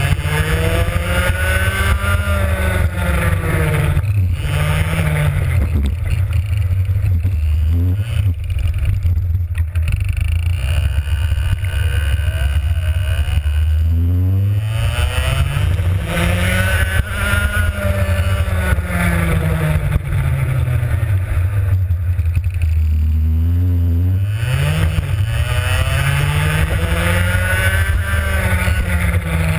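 Two-stroke racing kart engine heard onboard, its revs climbing and falling away again and again as the kart is driven through corners, with a few quick short blips of throttle.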